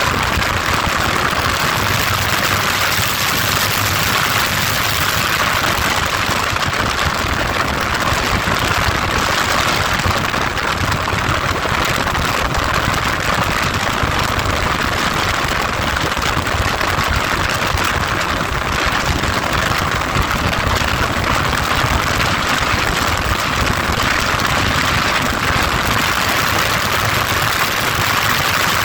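Heavy wind noise on the microphone of a moving motorcycle: a steady rushing hiss, with the engine running underneath.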